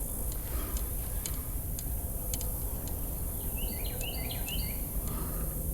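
A songbird singing a short run of quick, sliding chirps a little past halfway, over steady low background noise and scattered faint ticks.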